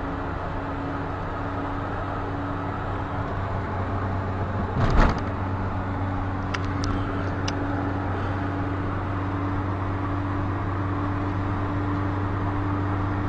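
Car engine and road noise heard from inside the cabin while driving, a steady hum. About five seconds in there is one loud, brief thump, followed by a few light clicks.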